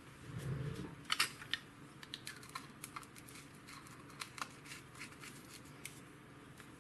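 Small clicks, taps and clacks of things being handled by hand on a hobby workbench: a short low murmur at the start, two sharper clacks about a second in, then a scatter of light ticks that stops about six seconds in.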